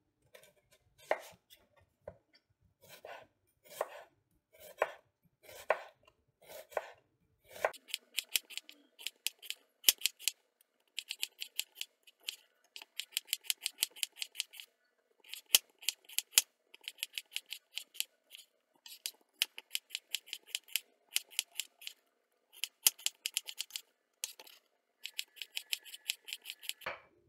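Chef's knife slicing raw peeled onions on a wooden cutting board: crisp crunchy cuts with the blade tapping the board. The first cuts come slowly, about one a second; from about eight seconds in they come in fast runs of many cuts with short pauses between.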